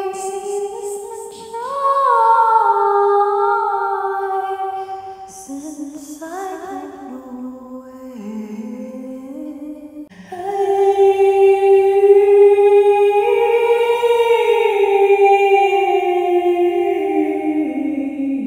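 A woman's voice singing without words: long held, sliding notes in an ethereal, humming style, with a brief pause about ten seconds in.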